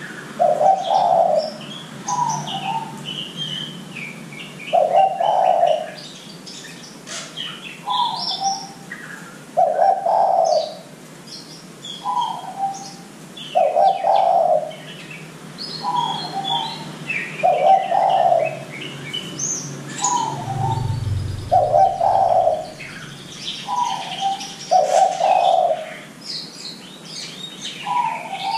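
Spotted dove (derkuku) cooing over and over, each phrase a short higher note followed by a louder, longer lower coo, with the phrases coming every few seconds. Small birds chirp faintly in the background, and a short low rumble comes a little past the middle.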